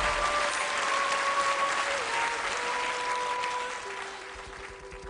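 Studio audience applauding, the clapping thinning out toward the end, with a few faint held musical tones underneath that step down in pitch.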